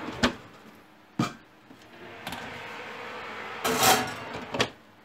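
Metal wire oven rack and baking dishes being handled in an oven: a few sharp knocks and clicks in the first second and a half, then a longer, louder rattle about four seconds in and one more click.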